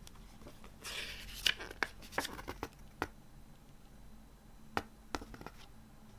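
Hands handling a CD and its packaging: a brief rustle about a second in, then a quick run of sharp clicks and taps, and two more clicks near the end.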